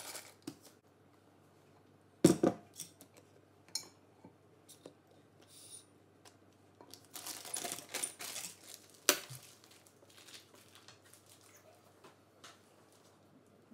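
Kitchen handling sounds while a plastic piping bag is filled with cream: a sharp knock about two seconds in, the bag's plastic rustling around the middle, and scattered clicks and taps of a scraper against the bowl.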